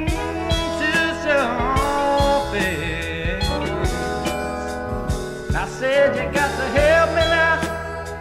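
Classic rock band music between sung lines, with a lead line bending its notes over bass and drums.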